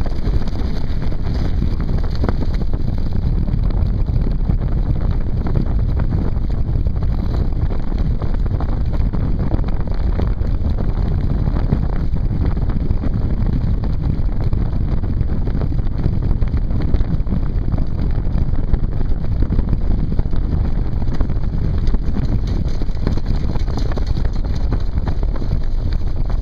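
Strong wind buffeting the microphone of a camera mounted on a moving land yacht, over a steady rumble and rattle from the yacht rolling at speed. The noise stays loud and even throughout.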